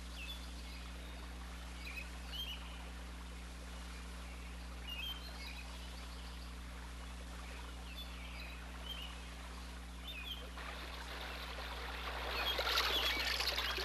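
Short, high bird chirps every second or two over a steady low hum. From about ten seconds in, water splashing and rushing as someone wades into a stream, loudest near the end.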